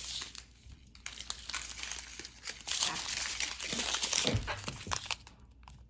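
Small plastic bags of diamond-painting drills crinkling as they are handled and sorted.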